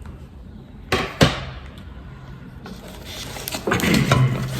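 Items being handled out of a gift box: two sharp knocks about a second in, then packaging rustling and crinkling, growing busier toward the end.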